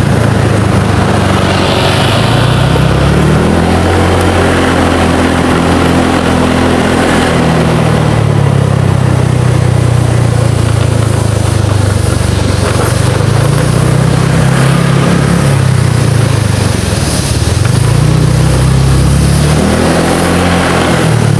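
Motor scooter's engine running on the move, its pitch rising and falling several times as the rider speeds up and slows, dropping low about three quarters of the way through. Heavy wind and road noise over it.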